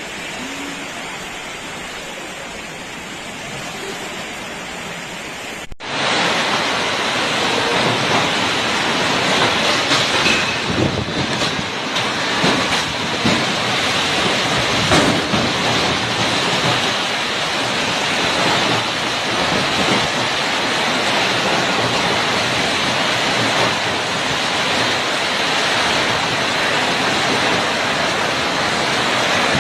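Steady rushing noise of a storm, heavy rain and strong wind. The noise is interrupted by a cut about six seconds in and comes back louder.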